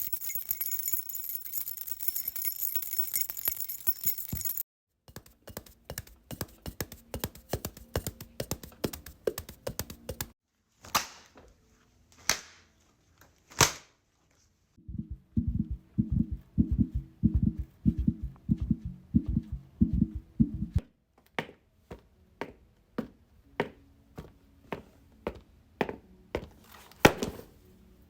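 A string of separate foley sound effects: first a dense jingling rattle, then fast runs of small clicks and knocks. A few single sharp hits with ringing tails follow, then a stretch of low, even thuds at about three to four a second, and finally more spaced-out clicks.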